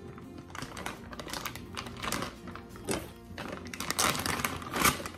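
Thin plastic grocery bag crinkling and rustling in repeated bouts as raw chicken is handled in it, busiest in the second half, over steady background music.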